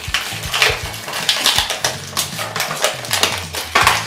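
Small hard plastic toy pieces clicking and clattering, with plastic packaging crinkling, as they are handled and taken out of their package. There are many quick irregular clicks.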